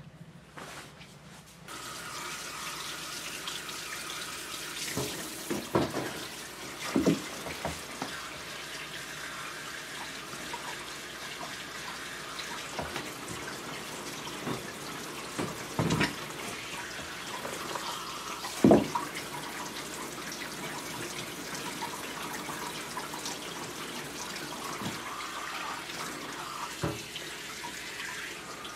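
Tap water running steadily into a bathtub, starting about two seconds in, with a few scattered knocks and thumps, the loudest past the middle.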